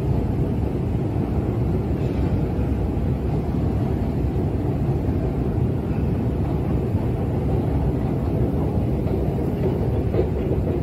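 Steady low rumble of running escalators in an Underground station, even throughout with no distinct knocks or tones.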